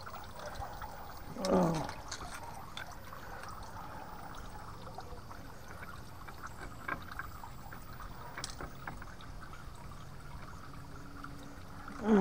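Garden fountain trickling steadily. About a second and a half in, a short call falls steeply in pitch, and a few faint clicks come later.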